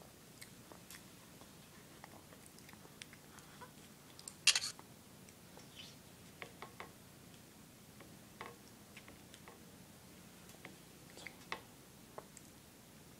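Soft mouth smacks and small clicks of a toddler eating cake with a spoon from a plastic plate, with one louder clatter about four and a half seconds in.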